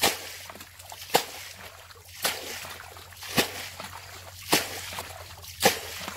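Muddy water being bailed out of a shallow pool with a square plastic container: six splashes about a second apart, each a sharp slap of thrown water followed by a short slosh.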